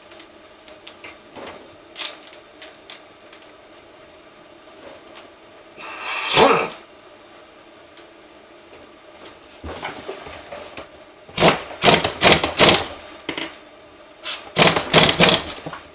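Impact wrench run in several short rattling bursts, tightening a nut on a motorcycle engine: one burst about six seconds in, then a run of bursts in quick succession toward the end.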